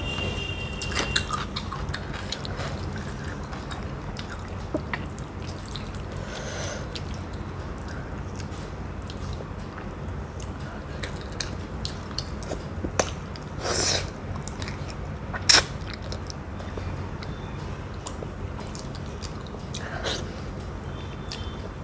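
Close-miked eating sounds: chewing, and wet squishing of rice and curry mixed by hand, with scattered small clicks and smacks and two louder short sounds near the middle, the second the loudest. A steady low hum runs underneath.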